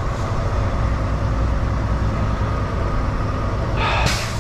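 Diesel engine of a Volvo semi-truck running with a steady low rumble as the truck rolls slowly, heard from inside the cab. Near the end there is a short, sharp hiss.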